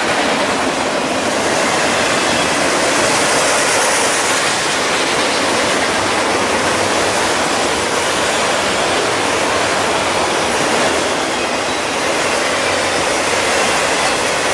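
Train of multi-level autorack freight cars rolling past close by: a steady, unbroken noise of steel wheels running on the rails.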